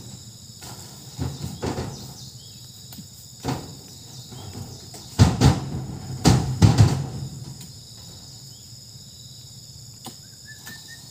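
Oil palm fruit bunches thudding into a truck bed as they are pitched up on a spiked pole: a few scattered dull impacts, then a cluster of heavier ones about five to seven seconds in. A steady high insect drone runs underneath.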